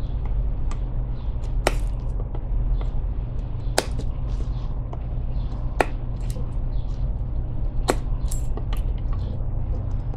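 Odenwolf W Sow Catcher fixed-blade knife hacking at a wooden stick to carve a pointed stake end: four sharp strikes of the blade into the wood about two seconds apart, with lighter cuts in between, over a steady low rumble.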